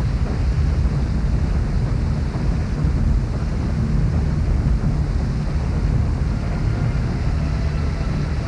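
A waterfall's steady roar, heavy in the low end, as heard from a cave behind the falls.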